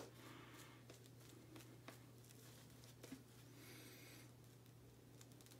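Faint scratchy swishing of a badger-hair shaving brush working sandalwood shaving-cream lather over stubbled skin, in a few short strokes. A brief sharp tick comes right at the start, with a low steady hum underneath.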